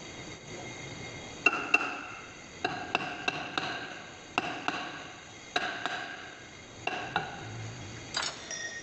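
Hand hammer striking a truck wheel hub clamped in a lathe chuck: about a dozen sharp metal blows, mostly in pairs, each ringing briefly. A short clatter comes near the end.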